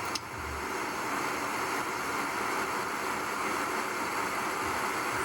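Steady background noise with no speech: an even, continuous hiss.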